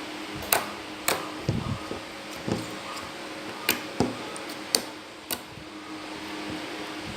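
Slime being pressed and pulled by hand, giving irregular sharp clicks and pops about once or twice a second, over a steady background hiss.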